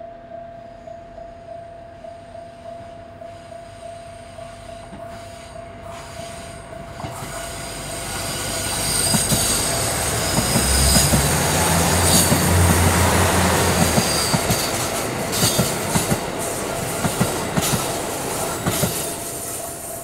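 KiHa 85 series diesel limited express approaching and running past through the station: its diesel engines rumble loudest a few seconds in, wheels squeal high over the track, and then a run of sharp wheel clacks over the rail joints follows as the cars go by. Under it all runs the steady hum of the waiting local diesel railcar.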